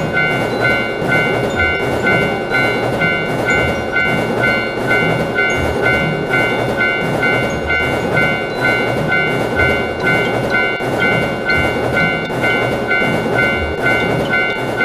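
Japanese railroad crossing alarm ringing "kan-kan" in a steady, even rhythm, over the rumble and clatter of a train passing the crossing.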